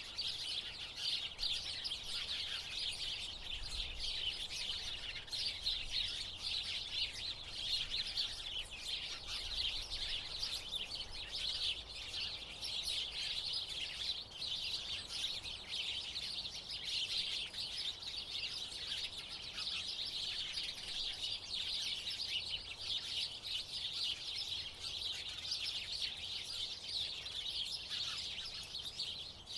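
A flock of house sparrows chirping, with many short chirps overlapping in a steady, unbroken chorus.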